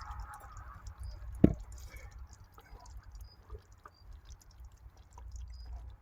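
A pot of gravy's bubbling and the cooker's noise dying away within the first second after the heat is shut off, then a single sharp knock about a second and a half in, followed by faint small ticks and clicks.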